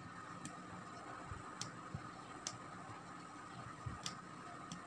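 Aari hook needle punching through fabric stretched on an embroidery frame as chain stitches are worked: faint, sharp ticks at uneven intervals of about half a second to a second and a half.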